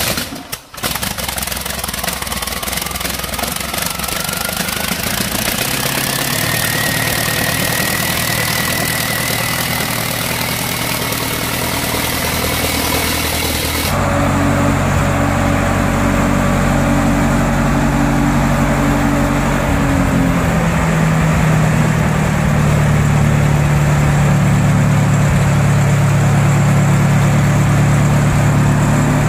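Rolls-Royce Meteorite V8 engine running on a test stand, with a whine that rises over several seconds and then holds steady. About halfway through it gives way to a Thornycroft Antar tank transporter's engine idling with a deep, steady note that steps down in pitch partway through.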